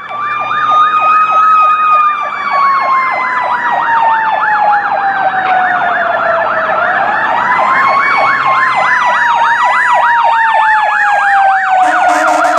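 Fire truck sirens: a slow wail that glides down, then rises again and falls, overlapped by a fast yelp repeating several times a second. A horn blast starts near the end.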